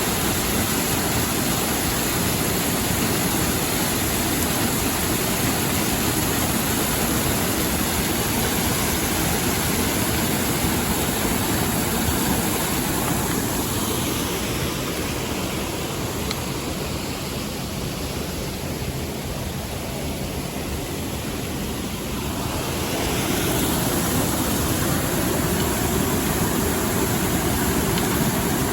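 Mountain stream rushing over rocks, a steady hiss of water. It grows softer and duller for several seconds in the middle, then comes back at full strength.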